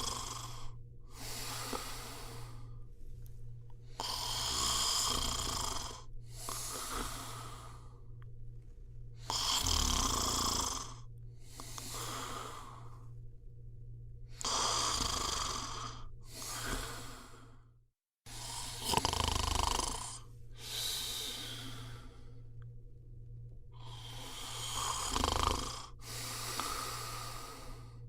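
A person snoring steadily, about five breaths, each heard as two rasping parts a second or so apart, over a steady low hum. The sound cuts out for a moment about eighteen seconds in.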